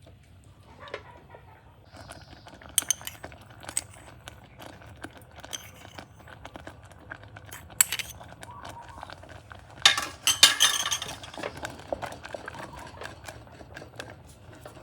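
Kitchen utensils and dishes clinking and knocking in irregular taps, with a louder clatter about ten seconds in.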